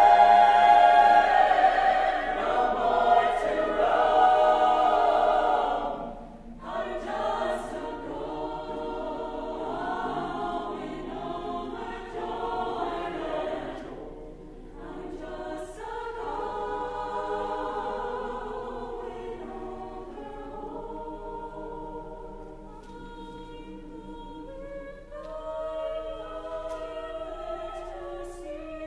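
Mixed chamber choir singing, loud for the first six seconds, then softer phrases after short breaks about six and fourteen seconds in.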